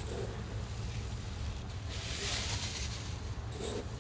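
A small glass cup scooping through dried barberries in a plastic bin: a dry rustle of the small berries, loudest about two seconds in, over a steady low rumble.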